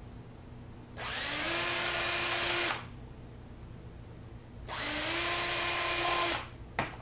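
Cordless drill run twice for about two seconds each, boring bolt holes through a small plastic piece; each time the motor spins up with a quick rise in pitch, then holds steady before stopping. A short click near the end.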